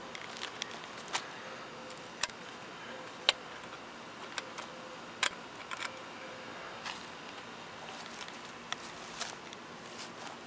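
Camera handling noise: scattered sharp clicks and taps at irregular moments, the loudest about three and five seconds in, over a faint steady hiss.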